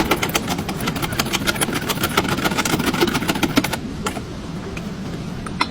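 Car engine running, with a fast clatter of ticks over a steady hum; the clatter quietens about four seconds in.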